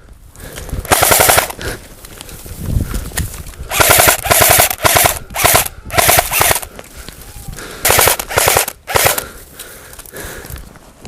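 Airsoft rifle firing short full-auto bursts, about seven of them, each a rapid rattle of shots lasting under a second.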